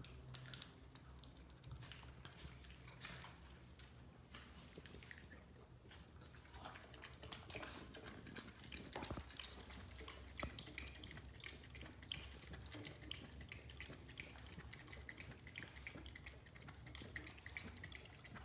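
Dog eating and lapping at a stainless steel bowl: an irregular run of faint wet clicks and smacks, busier from about six seconds in.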